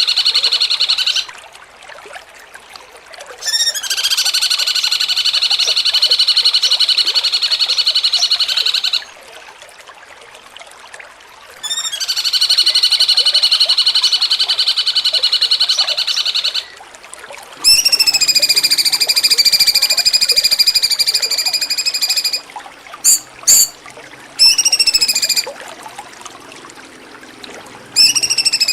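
Cucak cungkok song: three long, steady, buzzing trills of several seconds each with short pauses between, then a higher call of bending whistled notes followed by a few short chirps near the end.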